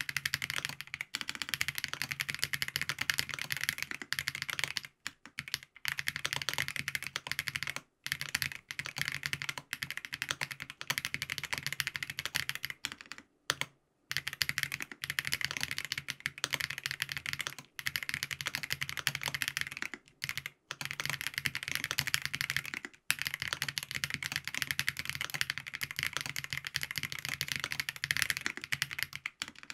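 Steady fast typing on a FancyTech Origin 65A mechanical keyboard with Krytox-lubed Geon Black switches, a gasket-mounted POM plate and ABS keycaps: a dense run of key clacks with a few brief pauses, the longest about halfway through.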